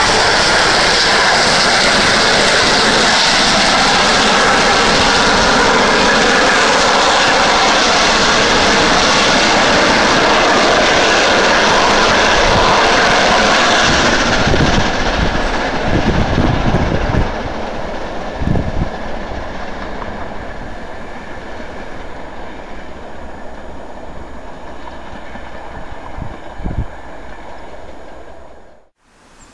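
A steam-hauled passenger train passing loudly, most likely rebuilt Bulleid Battle of Britain class pacific 34067 Tangmere at work with its coaches running over the rails. The sound drops away about halfway through as the train draws off toward the tunnel, leaving a fainter rumble with a few low thumps.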